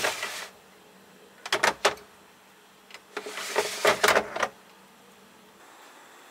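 Clear plastic refrigerator egg drawer sliding and rattling in three short spells, as eggs are taken out of it and it is pushed shut.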